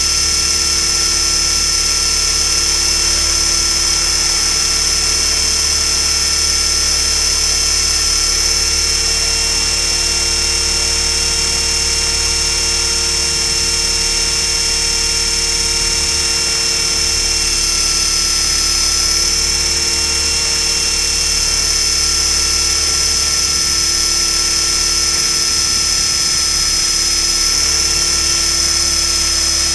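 Align T-Rex 500 electric RC helicopter heard from a camera strapped to its frame: a loud, steady high whine of the motor, gears and spinning rotors. The pitch shifts slightly a couple of times.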